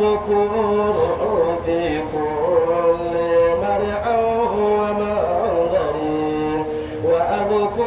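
A man chanting Arabic Sufi praise poetry (madih) solo into a microphone, in a melismatic style of long held notes with ornamented turns between them.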